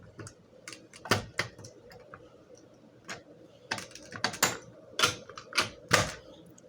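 Manual fire alarm pull station being worked by hand: irregular sharp plastic and metal clicks and clacks, about a dozen, as the handle is pushed in and pulled down and the mechanism is handled.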